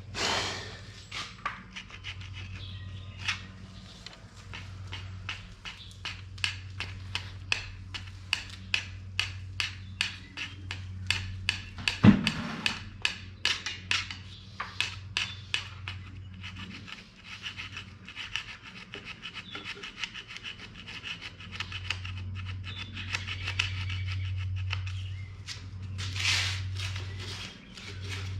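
Emery cloth rubbed by hand in quick back-and-forth strokes, a few a second, over the oil pan gasket surface of a Chevy 350 engine block, scouring off stuck-on gasket residue. One sharp knock about twelve seconds in.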